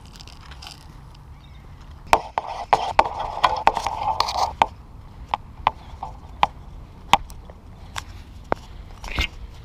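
Handling noise from a small action camera pressed against a fishing rod's grip and spinning reel: irregular sharp knocks and clicks. There is a rubbing scrape between about two and four and a half seconds in.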